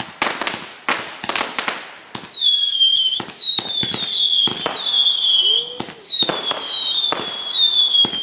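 Consumer fireworks firing in quick succession. First comes a rapid string of sharp bangs, then from about two seconds in a run of whistling shots, each a short high whistle that falls slightly in pitch, about two a second, mixed with pops.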